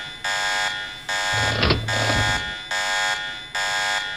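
Alarm sounding in repeated blasts, about one a second. A low hum briefly joins in near the middle.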